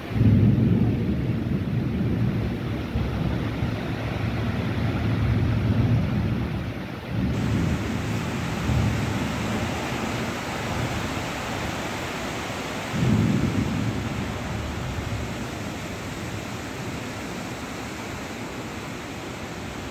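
Heavy rain falling steadily, with a deep rumbling that swells up and dies back several times: about a second in, again after about seven seconds and once more after about thirteen seconds.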